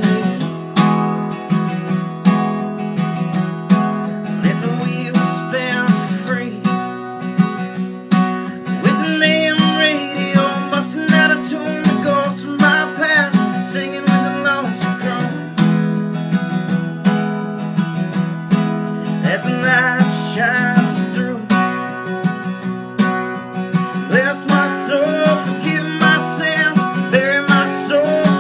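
Acoustic guitar strummed steadily through a country song, with a man's singing voice coming in over it in several passages.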